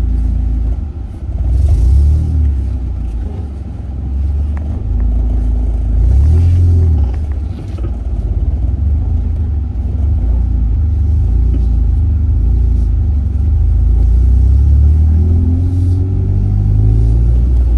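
Car driving, its engine and road rumble steady and low, with louder rushes about two seconds and six seconds in and the engine note rising near the end as it speeds up.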